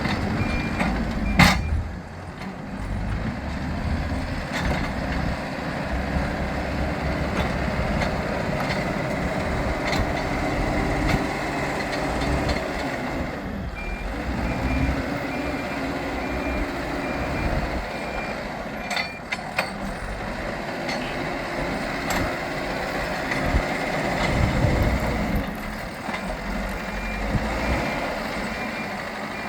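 Hidromek 102S Supra backhoe loader's diesel engine working under load, its pitch rising and falling as the front bucket is worked. A reversing alarm beeps at the start, again for a few seconds in the middle, and near the end. A few sharp knocks are heard, the loudest about a second and a half in.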